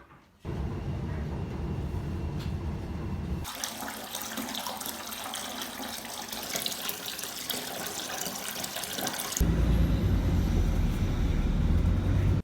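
Running water, in three abruptly cut stretches: a deep, heavy rush at first, then a brighter, hissier splashing in the middle, and the deep rush again, louder, near the end.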